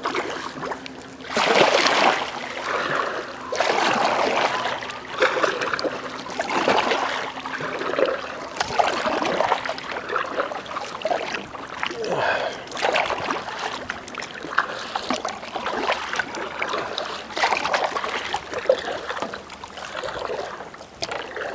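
Kayak paddle strokes: the blades splashing into and out of the water and dripping, in a repeating rhythm of about one stroke every second and a half.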